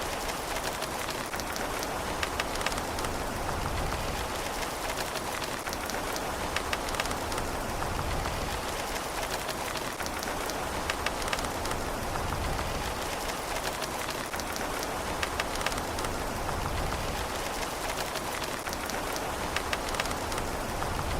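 Steady rain falling on a surface, with a constant hiss and many close, distinct drops pattering through it.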